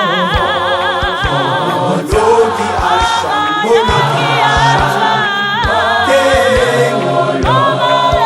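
A choir singing in several-part harmony, with a wavering held note near the start, over a steady low beat.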